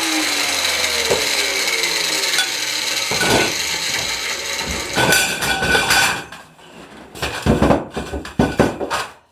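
Angle grinder winding down after being switched off, its whine falling steadily in pitch over the first two seconds as the disc coasts to a stop. From about six seconds in, a few separate knocks and rubbing sounds of tool or workpiece handling.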